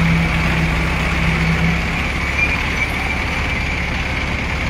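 Diesel engines of mobile cranes running steadily while they hold a truck-mounted drilling rig aloft. There is a steady low hum for the first two seconds, which then stops.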